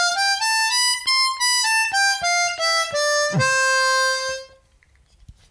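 Seydel 1847 Lightning ten-hole diatonic harmonica in compromise tuning, played as a scale one note at a time to check its tuning. The notes step up and then back down, ending on a longer held low note that stops about four and a half seconds in.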